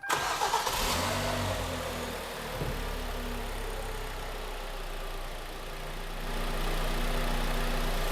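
Freshly rebuilt Kia Cerato's 2.0-litre G4KD four-cylinder engine starting, flaring up briefly in revs, then settling to a soft, quiet idle.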